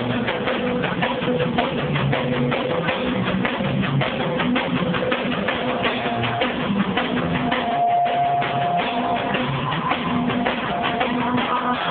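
A small band playing live: a drum kit and electric guitars, with drum hits coming thick and even throughout.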